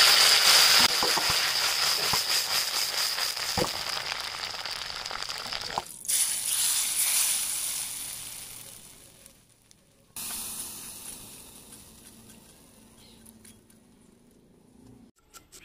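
Fresh curry leaves crackling and sizzling in smoking-hot coconut oil, loud at first and fading over several seconds. About six seconds in and again about ten seconds in, the hot tempering sizzles in two shorter bursts as it meets the curry, each dying away.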